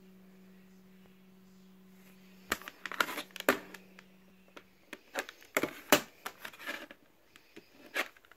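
Plastic CD jewel case being picked up and turned over on a wooden table: a run of sharp clicks and short rattles that starts about two and a half seconds in. A steady low hum sounds underneath and stops about five seconds in.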